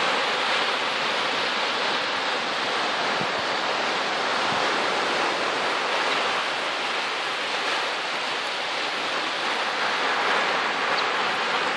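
Ocean surf washing steadily: an even, unbroken hiss.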